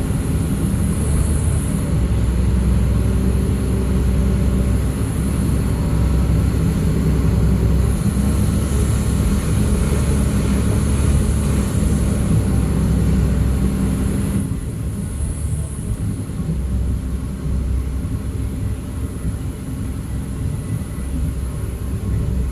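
Large diesel engine of heavy machinery running steadily with a deep rumble. About two-thirds of the way through, the higher hiss drops away suddenly and the sound becomes somewhat quieter.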